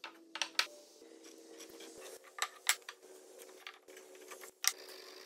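Hardwood furniture parts being picked up, shifted and set down on a wooden workbench: a string of sharp wooden knocks and clacks, the loudest near the end.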